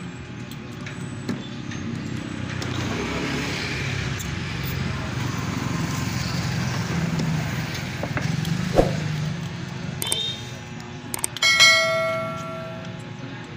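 A low vehicle rumble swells over several seconds and fades. Near the end come a few quick clicks and then a bright bell ding that rings for about a second and a half: the sound effect of a subscribe-button animation.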